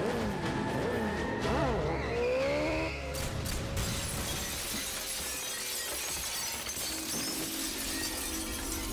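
BMW Rockster motorcycle engine revving up and down, then about three seconds in a large plate-glass shop window shatters as the bike bursts through, with glass shards showering down, under dramatic film music.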